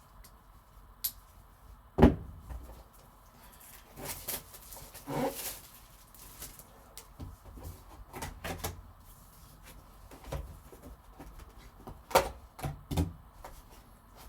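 Cardboard card box and its packaging being handled and opened by hand: scattered knocks and short rustles, with one sharp thump about two seconds in.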